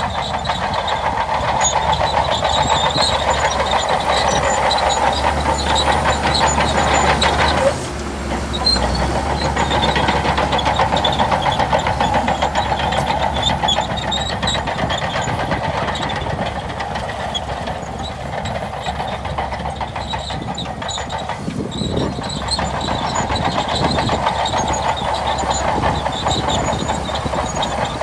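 Shantui DH17C2 crawler bulldozer at work, its engine running under load with a rapid, continuous clatter from the steel tracks. The sound dips briefly about eight seconds in, then carries on.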